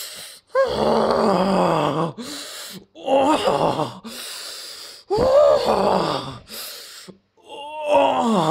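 A human voice groaning and moaning in about four drawn-out cries that waver and bend in pitch, separated by short gasping breaths.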